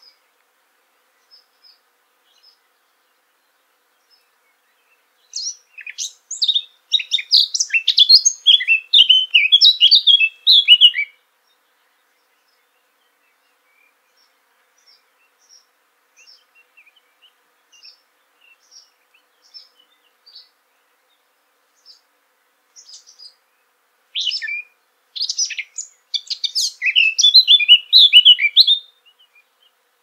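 Male blackcap singing two rich warbling song phrases of about five to six seconds each, the first about five seconds in and the second near the end, each growing louder as it goes. Faint scattered notes fill the gap between the phrases.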